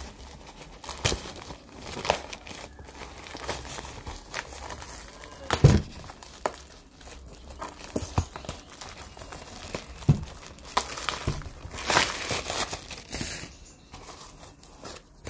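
Cardboard box and packaging being handled and opened: irregular crinkling and rustling with a few knocks, the sharpest about six seconds in, as the water bottle is slid out of its box.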